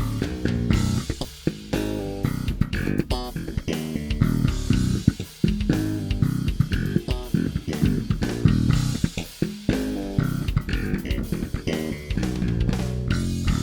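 Warwick Thumb bolt-on five-string electric bass played over a drum-kit backing, recorded with flat EQ through the Neural DSP B7K cab simulator.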